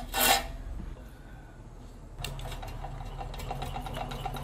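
Hand-turned flywheel and crank of a homemade model steam engine: a brief scrape at the start, then from about halfway in a rapid, even run of mechanical clicks, several a second, over a low hum.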